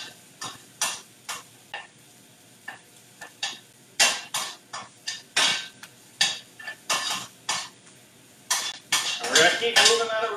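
Metal utensil stirring garlic and ginger frying in oil in a stainless sauté pan on high heat: irregular clinks and scrapes against the pan, about two or three a second, over a faint sizzle. A denser run of scraping comes near the end.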